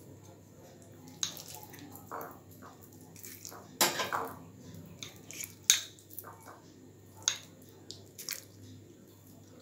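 Steel spoon clinking and scraping against the bowls while scooping thick, soft khichuri from one bowl into another: several sharp clinks scattered through, between quieter scrapes.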